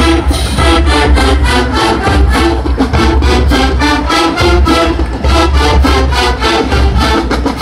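Marching band playing a brass-led tune over a fast, even drum beat with heavy bass drums.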